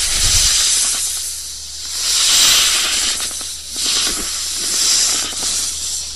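Snake hissing in long breaths of air, swelling and fading several times.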